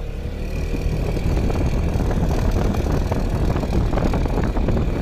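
Yamaha XMAX scooter's single-cylinder engine revved under throttle, louder from about half a second in, with a rapid chirping rattle from the engine. The owner suspects a loose bolt on the plate in the cylinder head that holds the camshaft.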